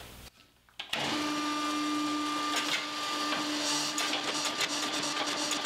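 Homemade hydraulic forging press running: the electric motor and hydraulic pump give a steady hum with a fainter higher whine, with scattered light clicks as the ram works a steel bar. The sound cuts in about a second in, after a moment of near silence.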